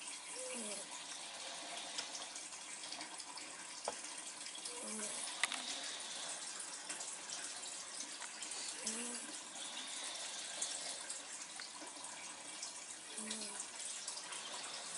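Two dogs snoring in their sleep, each snore a short low pitched sound coming about every four seconds over a steady breathy hiss.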